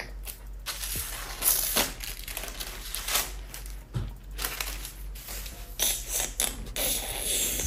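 Rustling and crinkling of a thin protective paper sheet as it is peeled out from between a new laptop's screen and keyboard and handled, in irregular crackly bursts, with a soft knock about halfway.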